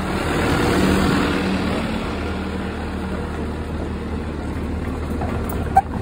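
Compact track loader's diesel engine running steadily under load, swelling louder about a second in and then holding, with a short sharp click near the end.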